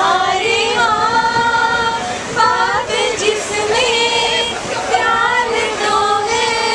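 A woman singing a Hindi film song unaccompanied, in long held notes that glide between pitches, over the running noise of the train coach.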